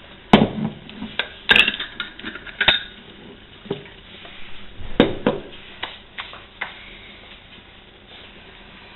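A glass jar of flour being handled beside a pan: a scattered run of sharp clinks and knocks over the first seven seconds or so, then only a faint steady background.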